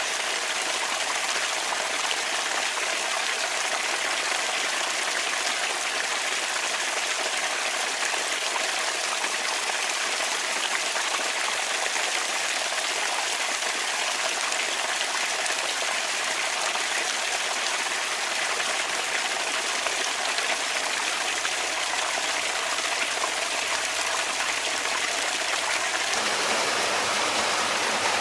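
Bamboo water fountain: water running and trickling in a steady, even splash, turning slightly fuller and louder about two seconds before the end.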